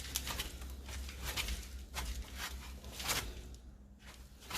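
Front right wheel hub of a Daewoo Lanos being spun by hand on a jack, with a few short scraping, rustling strokes over a faint steady low hum. No clear bearing drone: this wheel's bearing does not sound like the worn one.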